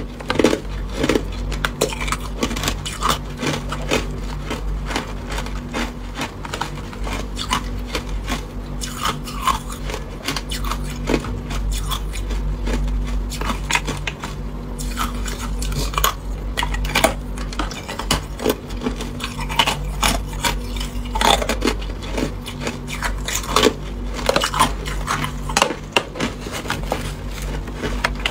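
Clear ice cubes clinking and knocking against each other and against the plastic tub as they are handled, a close, busy run of sharp clicks.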